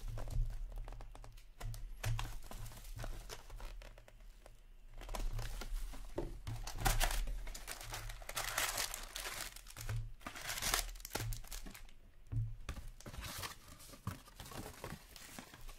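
Plastic wrapper crinkling as it is stripped from a cardboard trading-card box, then the cardboard box tearing open and foil card packs rustling as they are pulled out, in irregular bursts. The loudest rips come about seven and ten seconds in.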